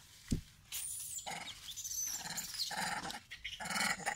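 Macaques calling in a run of harsh, noisy squeals and grunts, after one sharp thump about a third of a second in.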